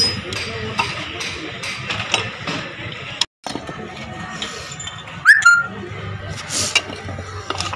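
Scattered metal clinks and taps as moped engine parts and hand tools are handled during a strip-down, with a brief rising whistle-like chirp about five seconds in.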